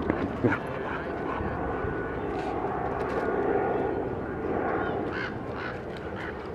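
A steady, engine-like rumble that swells a little in the middle and eases off toward the end.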